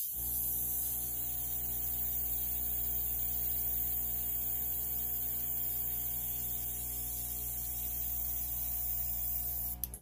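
Airbrush and its air compressor running: a steady motor hum with a high air hiss from the airbrush nozzle as it blows alcohol ink across glossy paper. It starts abruptly and cuts off just before the end.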